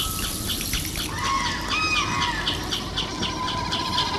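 Birds calling: a couple of drawn-out calls that rise, hold and fall, about a second in, over a short high chirp repeating evenly about three times a second.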